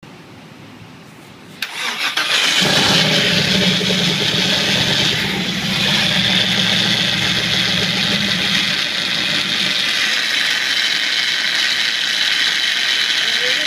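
Engine started by its starter motor, cranking after a click and catching about two seconds in. It then runs with a steady high-pitched grinding from the starter motor that goes on after start-up. The low engine note fades out near the end while the grinding continues.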